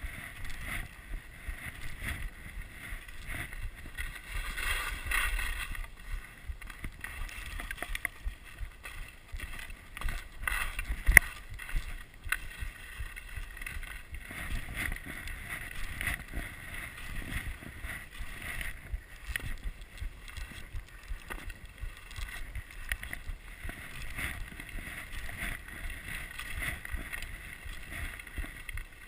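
Skis sliding and scraping over packed snow at speed, with wind buffeting the camera microphone. A sharp knock about eleven seconds in is the loudest moment.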